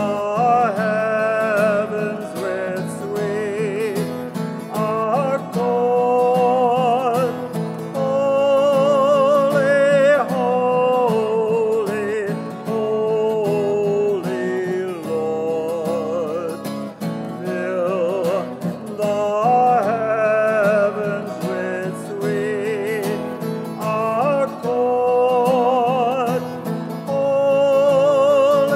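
A hymn sung by a voice with marked vibrato, accompanied by guitar, in slow held notes.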